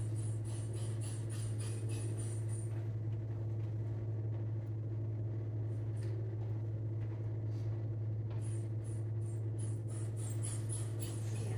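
A dog panting in quick, even breaths about three to four times a second, which stops for a few seconds in the middle and starts again near the end. Under it runs a steady low hum.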